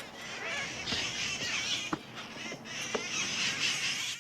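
A flock of wild red-masked parakeets (cherry-headed conures) screeching and chattering together in a continuous, overlapping din, with a few sharper single calls standing out, until it cuts off at the end.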